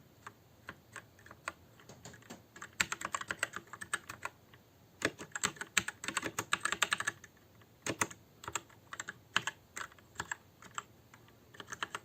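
Mechanical keyboard with Kailh Red linear switches and PBT keycaps being typed on, each key pressed all the way down (bottoming out). Scattered key clacks, with faster runs of typing about three seconds in and again from about five to seven seconds in.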